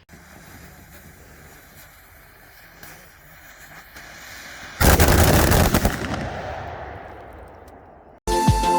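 A string of large Emperor Dragon firecrackers going off all at once: about five seconds in, a dense, very fast run of loud bangs for about a second, fading over the next two seconds. Before the bangs there is only a faint hiss.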